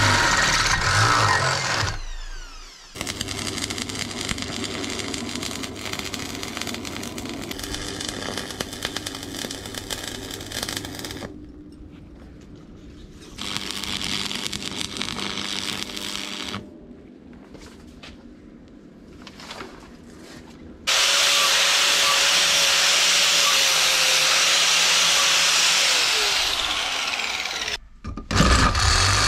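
Power tools working metal, heard as a run of short clips that start and stop abruptly. The loudest, near the end, is a steady noise lasting about seven seconds.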